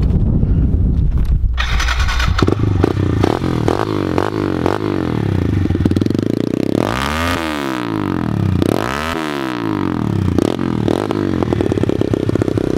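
A 110cc single-cylinder four-stroke pit bike engine running close to the exhaust. It is revved up and let back down twice about halfway through.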